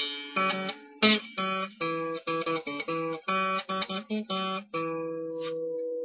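Acoustic guitar music: a quick run of plucked notes and strums, ending on a chord that rings out near the end.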